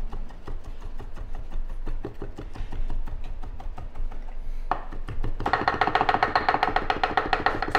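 Chef's knife mincing on a wooden cutting board in rapid, even strokes. Background music with a beat comes in about two-thirds of the way through, over the chopping.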